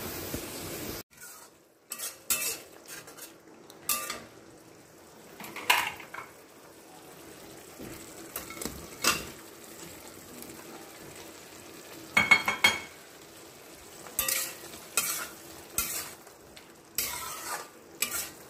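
Spatula stirring paneer cubes through spinach puree in a stainless steel pan: scattered scrapes and knocks against the pan, with a short metallic clink about twelve seconds in.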